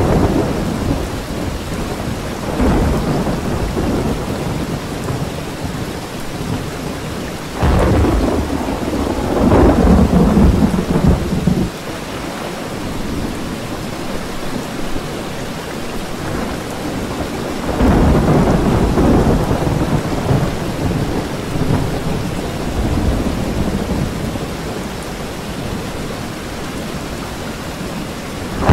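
Thunder from a supercell's cloud-to-cloud lightning rumbling in rolling waves over a steady hiss. A sudden loud rumble comes about a quarter of the way in and lasts some four seconds, and another swells up past the middle.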